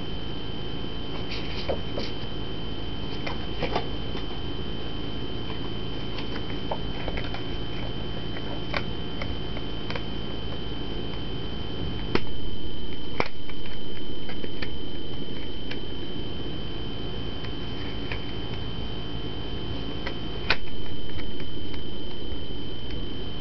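Plastic CD jewel cases clicking and clacking as they are handled, with two sharper knocks about halfway through and near the end, over a steady low hum and a constant high-pitched whine.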